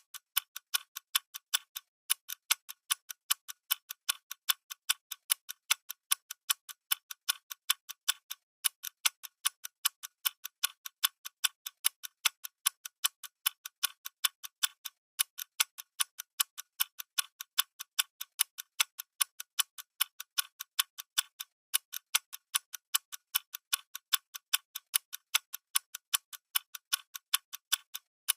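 Clock ticking steadily in a quick, even tick-tock, louder ticks alternating with softer ones.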